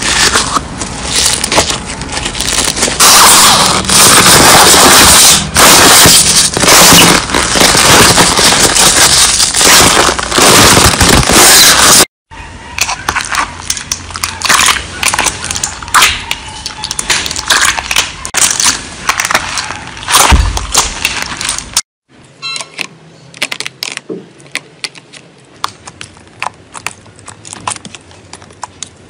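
Slime being squeezed and pressed by hand, giving dense crackling, popping and clicking. It comes as three separate takes: a very loud first one of about twelve seconds, then two quieter ones, split by sudden cuts.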